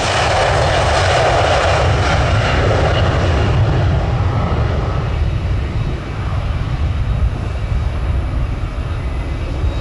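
Jet airliner engine noise, a steady rumbling roar from a large jet moving on or near the runway, loudest in the first few seconds and then fading a little.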